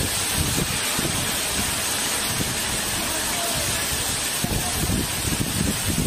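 Heavy, wind-driven rain pouring onto a flooded pavement: a steady, dense hiss with irregular low rumbling underneath.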